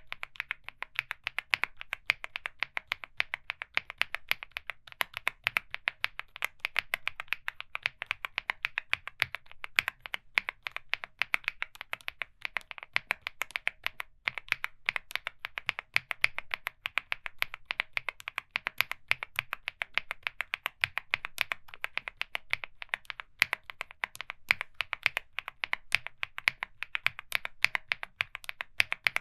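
Continuous fast typing on a custom mechanical keyboard with a warm, creamy sound: a rapid, uneven stream of keystroke clicks.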